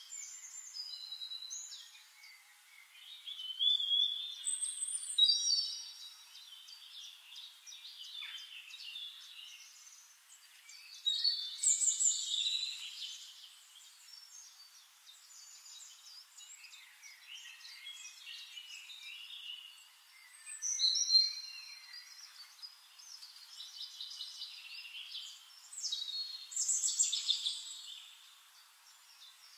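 Songbirds singing, with varied high chirps and whistled phrases. Louder bursts of song come every several seconds, with quieter twittering in between.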